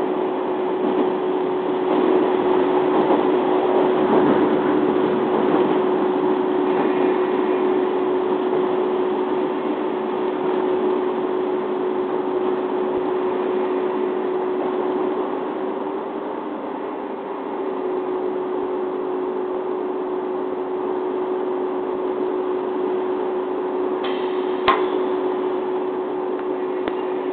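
Diesel railcar heard from inside the passenger cabin: engine drone and running noise, steady and even, as the railcar slows to a stop at a station, with a sharp click near the end.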